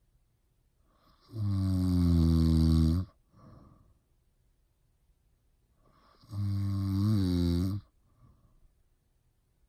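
Loud snoring: two long, rasping snores about five seconds apart, each followed by a short, faint breath out.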